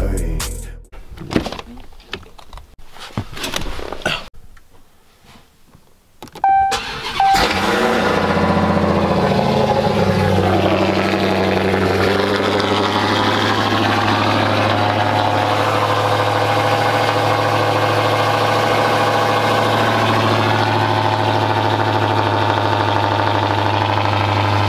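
Dodge Challenger SRT Hellcat Redeye's supercharged 6.2-litre HEMI V8 starting about seven seconds in, just after a brief high tone, then idling loud and steady on a cold start. Before that, only a few scattered clicks and knocks.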